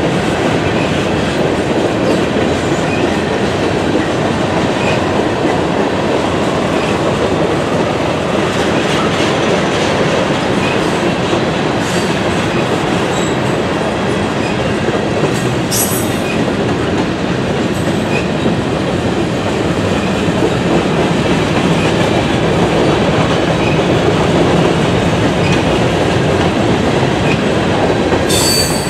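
Railroad cars rolling past on the rails: a steady loud rumble and rattle with faint regular clicks, and brief high-pitched wheel squeals a little past halfway and near the end.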